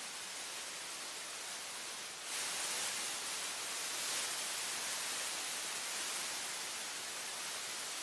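Steady hiss of static with no speech to be heard; it steps up a little in level about two seconds in.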